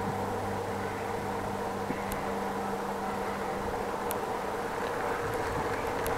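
Steady mechanical hum and rumble with a low drone that fades out about four seconds in, and a few faint ticks.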